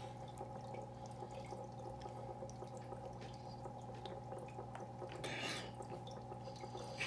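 Faint dripping and trickling water over a steady low hum, with scattered small ticks and a short breathy sound about five seconds in.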